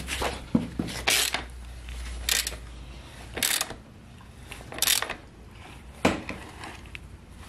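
Hand socket ratchet clicking as it tightens a dirt bike's rear axle nut: short bursts of pawl clicks on each return stroke, roughly one a second.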